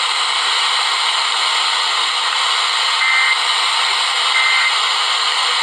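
Steady radio static hiss from a weather radio receiver between broadcasts, with two short high tones about three and four and a half seconds in.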